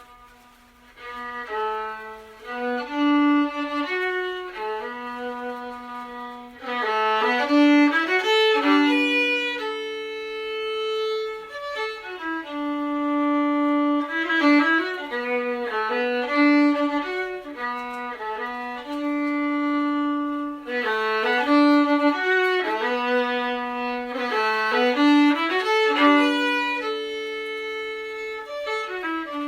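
Solo fiddle playing a folk melody of held and moving notes, coming in strongly about a second in.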